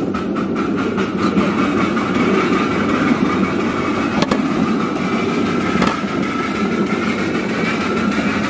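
Ride-on live-steam miniature train running along the track: a steady rumble and clatter of wheels on rail, with a rapid, even clicking in the first couple of seconds.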